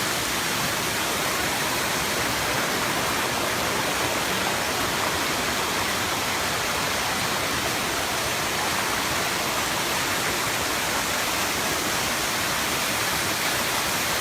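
Waterfall: a steady, even rush of water falling and cascading, close to the microphone.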